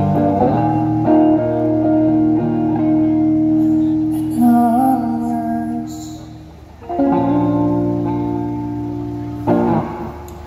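Electric guitar played through a small combo amp: strummed chords left to ring and fade, with a fresh strum every few seconds, about 1, 4.5, 7 and 9.5 seconds in.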